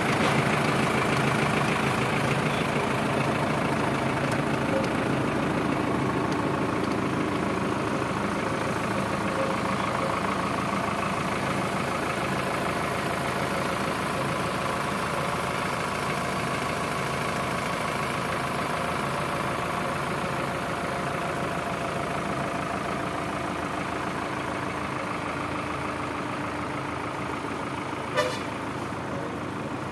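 Tractor engine running at a steady speed, driving a PTO-powered winch that reels in a wire rope; the sound grows gradually fainter. A single sharp knock sounds near the end.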